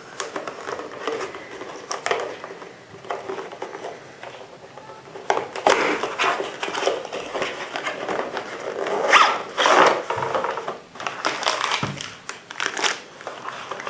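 Cardboard box being opened and handled: paperboard flaps scraping and sliding in irregular bursts. Near the end comes crinkly plastic rustling as the rifle scope in its plastic sleeve is pulled out of the inner box.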